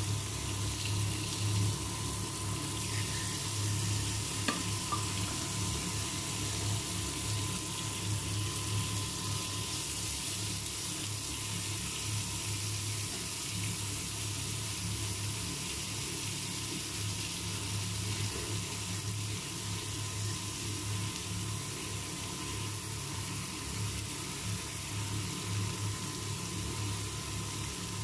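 Thin slices of pork belly sizzling on a ridged electric grill pan: a steady, even hiss, over a low, steady electrical hum.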